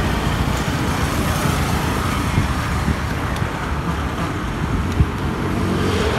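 A KTM Duke single-cylinder motorcycle engine running at low speed as the bike rolls up and stops close by, over a steady low rumble. There is a single sharp click about five seconds in.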